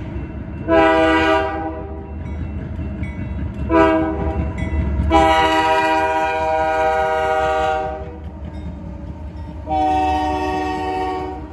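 Union Pacific diesel locomotive's air horn sounding for a grade crossing: a blast about a second in, a short one, then two long ones. Beneath it runs the low rumble of the locomotives passing through the crossing.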